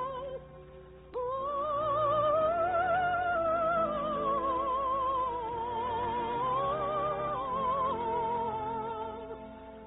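Operatic singing with a wide vibrato in long held notes, the melody rising and falling over a soft orchestral accompaniment; the voice comes in about a second in after a brief quieter moment.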